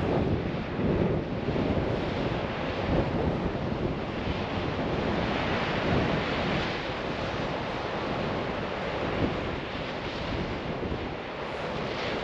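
Wind gusting against the microphone over waves washing, a steady rushing noise that swells and eases.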